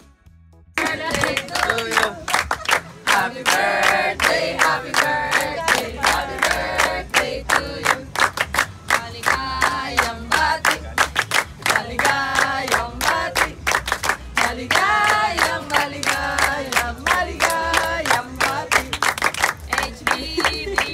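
A group of people singing a birthday song together while clapping along in time, starting about a second in.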